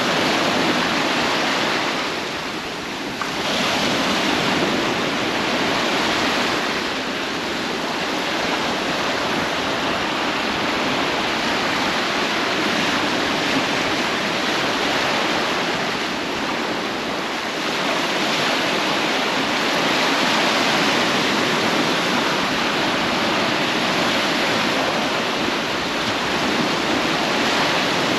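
Sea surf washing on a beach: a steady rushing hiss that eases briefly a few times before swelling again.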